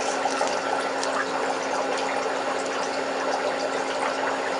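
Steady rushing hiss with a low hum under it, and faint light clicks of small plastic spangle packets being handled.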